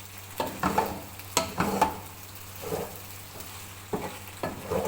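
A spoon stirring spaghetti in a frying pan, with irregular scrapes and knocks against the pan over a light sizzle.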